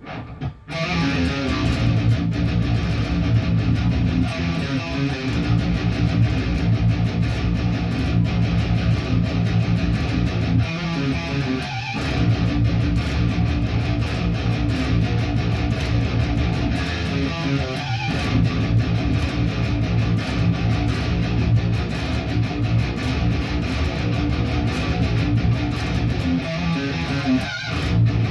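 A guitar being strummed: continuous chords played over and over, with a short stop right at the start and brief breaks about 11, 18 and 27 seconds in.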